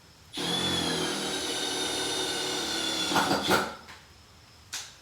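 Cordless 12-volt impact driver running for about three seconds as a steady motor whine, with a louder burst near the end before it stops. A short click follows about a second later.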